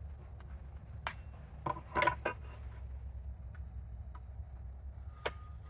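A few sharp metallic clinks and knocks from hand tools and wood being handled on a workbench. The loudest cluster comes about two seconds in, and there is one more click near the end.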